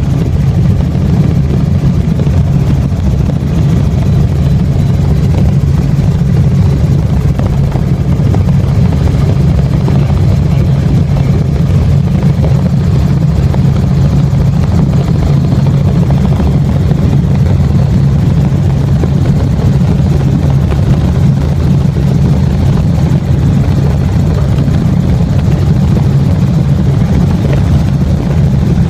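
Helicopter in flight, heard from on board: a loud, steady low drone of rotor and engine that does not change.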